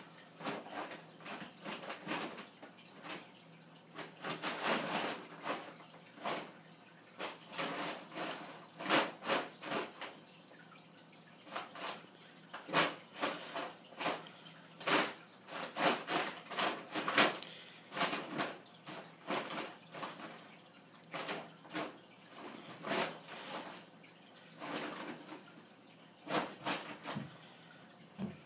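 Brown paper bag crinkling and rustling in irregular clusters of sharp crackles as a serval paws and noses into it after a tennis ball.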